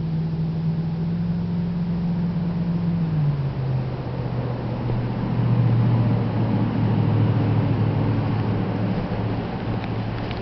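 A steady engine hum that drops to a lower pitch about three seconds in.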